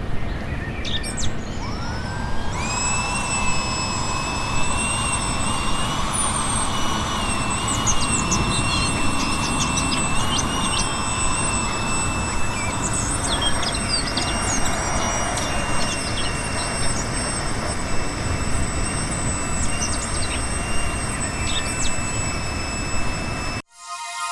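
Max Pump 2 portable electric air pump running steadily while inflating a tube: a loud rush of air with a high motor whine that comes in about two and a half seconds in. Birds chirp now and then. The sound cuts off suddenly just before the end.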